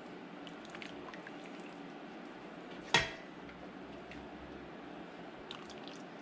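Broth being ladled over chicken into a ceramic bowl, faintly pouring and dripping. One sharp clink of the ladle on dishware comes about three seconds in.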